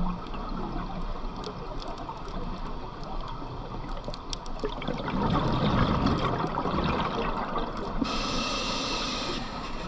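Scuba diver breathing through a regulator underwater. A gush of exhaled bubbles comes about five seconds in, and a steady hiss of inhalation comes near the end, over a background of faint clicks and crackles in the water.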